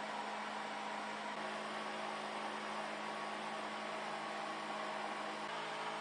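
A 10-watt 12-volt DC fan in a homemade 11-gallon wastebasket ice air cooler running with a steady hum, blowing air out through the cooler's vent pipes.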